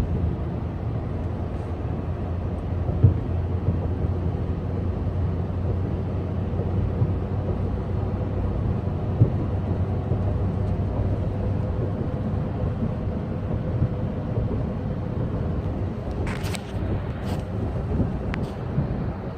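Steady low rumble of a car on the move, heard from inside the cabin, with a low hum running throughout. A few short clicks and pops break through, two in the first half and a small cluster near the end.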